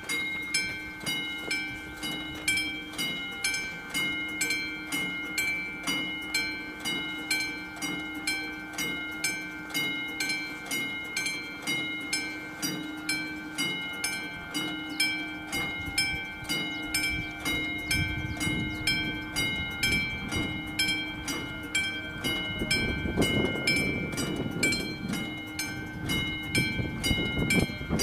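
Railway level-crossing warning bell of the classic Czech type ringing steadily, about two clear strokes a second, warning that a train is approaching. In the second half a low rushing rumble swells up under the bell.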